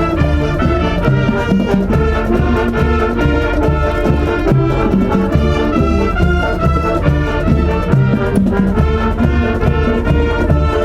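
Japanese high-school wind and marching band playing, the brass section carrying the tune over a steady drum beat.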